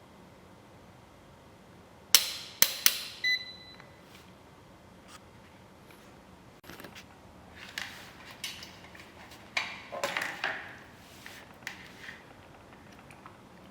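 Sharp clicks and knocks of hard objects being handled, a cluster of them about two to three seconds in, followed by a short beep. Scattered lighter knocks and rustling come later on.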